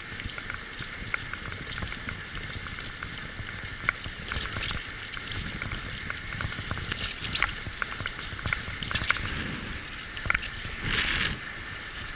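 A six-dog sled-dog team running, with its paws pattering on the trail and the wheels of the dryland rig crunching and rattling over the track. There is a louder rush of noise about a second before the end.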